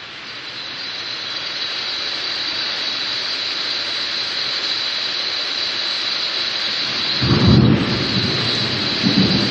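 Steady hiss of rain during a thunderstorm, swelling over the first couple of seconds, then a low rumble of thunder about seven seconds in and another near the end.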